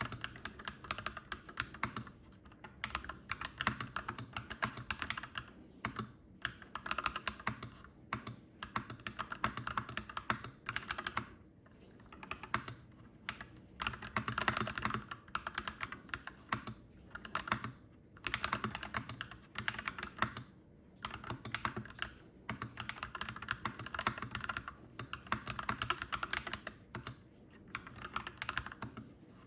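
Clacky mechanical keyboard being typed on, in quick runs of keystrokes broken by short pauses.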